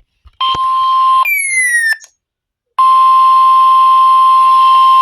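A short electronic tone and a quick falling tone, then, after a brief gap, the loud steady 1050 Hz NOAA Weather Radio warning alarm tone over radio hiss, which cuts off at the end; this tone marks the start of a new warning message.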